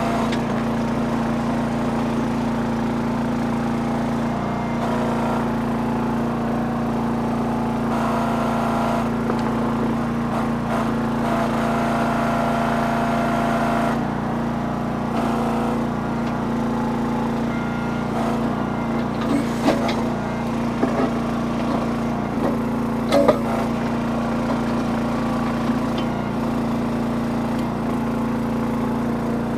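Small engine of a towable backhoe running steadily under digging load. Higher whining tones come and go, and a few sharp knocks sound in the second half.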